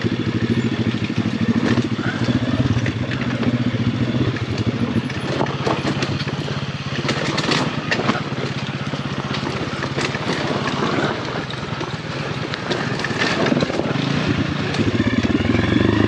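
Single-cylinder four-stroke 150cc pit bike engine running over rough trail with clatter from rocks and roots. It stalls about halfway through, and near the end it is bump-started and runs again.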